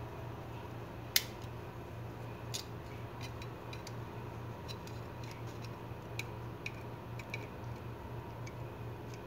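Light metal clicks and ticks of a vernier caliper's jaws working in the slots of a Gerber MP600 multitool's pivot screw as it is turned loose: one sharp click about a second in, then scattered lighter ticks, over a steady low hum.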